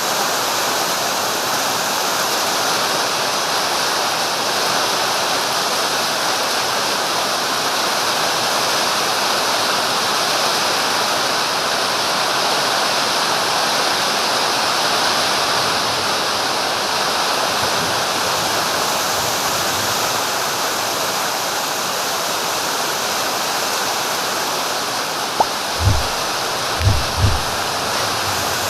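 Heavy rain pouring down in a windy storm, a steady even hiss. Near the end come a few low thumps.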